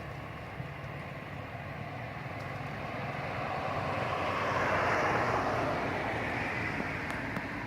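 A passing vehicle: a rushing engine noise that swells to a peak about five seconds in and then fades.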